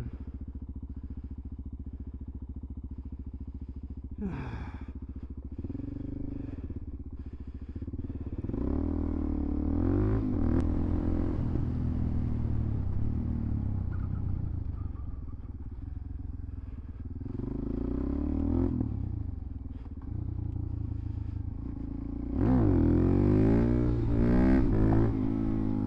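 Suzuki DR-Z400SM's single-cylinder four-stroke engine under way. It runs steadily and low for the first few seconds, then revs up and down repeatedly through the gears, loudest near the end.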